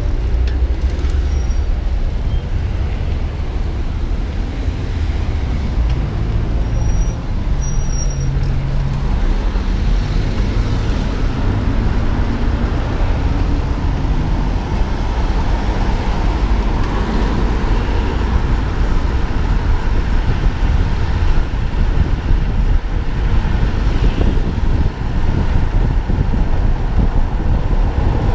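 Road traffic mixed with heavy wind rumble on the microphone of a moving camera. A vehicle engine hums past, audible roughly six to thirteen seconds in.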